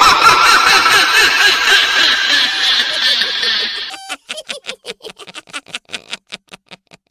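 A girl's high-pitched witch cackle, a long run of quick wavering laughs, breaking off about four seconds in into a fast string of short clicks that fade away.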